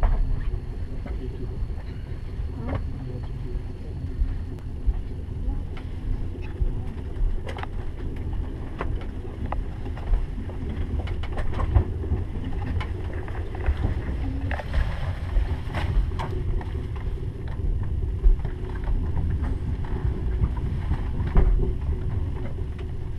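TGV high-speed train running, heard from inside the passenger carriage: a steady low rumble with scattered clicks and knocks.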